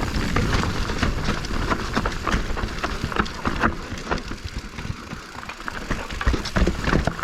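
Mountain bike riding down a dirt singletrack trail: a steady low rumble of tyres and motion, with rapid clicks and clatter from the bike jolting over rough ground.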